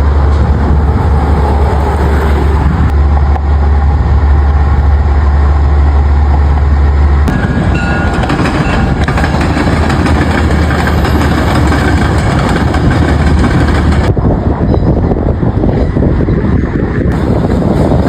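Trains in a rail yard: a loud, steady low hum for about the first seven seconds, then the wider, noisier rumble of a train on the move. The sound changes abruptly twice more near the end.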